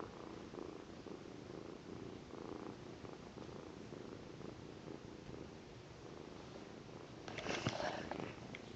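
A young tabby kitten purring steadily close to the microphone. Near the end there is a brief, louder rustling and scraping as the camera is jostled.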